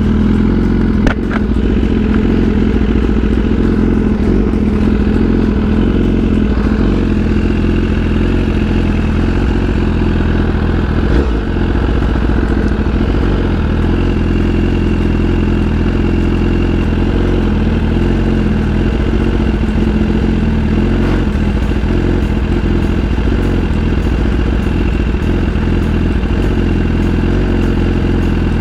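2018 BMW S1000RR's inline-four engine idling steadily while the bike waits in traffic.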